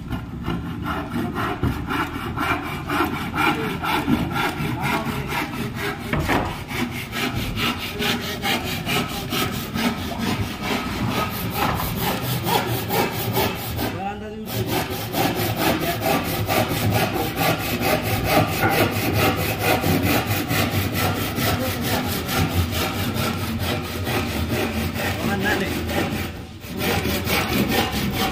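Handsaw cutting through a wooden shuttering plank in rapid, steady back-and-forth strokes. The sawing breaks off briefly twice, about 14 seconds in and again near the end.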